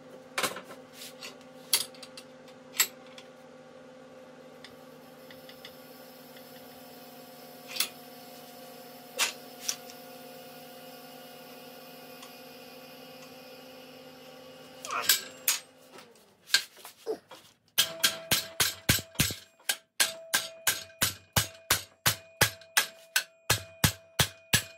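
A steady hum with a few scattered clicks, then, from about 18 seconds in, a hammer striking steel in a quick, even series of blows, about three a second, as a steel bracket is beaten over into a bend.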